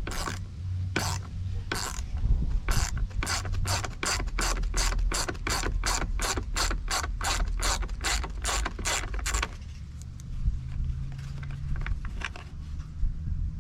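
Ratchet clicking as a T25 Torx screw is backed out: a few slow clicks, then a quick run of about three clicks a second that stops about two-thirds of the way through, with a few faint clicks near the end.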